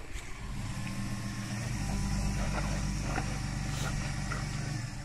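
Pickup truck engine running under load as it crawls up onto a boulder, growing steadily louder about two seconds in and easing off near the end.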